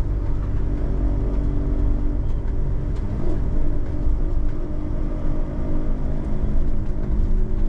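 Cabin noise of a Citroën Jumper-based camper van driving slowly: the diesel engine running steadily with a low rumble of tyres and road, heard from inside the cab.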